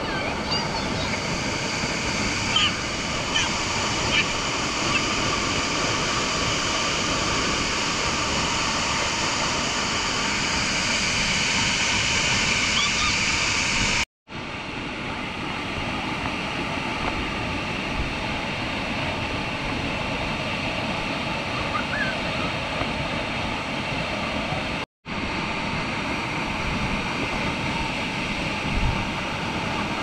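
Waterfall pouring onto a rock shelf, with water rushing across the shallow pool: a loud, steady rushing that cuts out briefly twice, about 14 and 25 seconds in.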